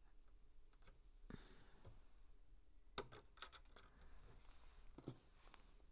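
Faint clicks and taps of plastic LEGO bricks being handled and pressed onto a build, a handful scattered through near silence, the sharpest about halfway.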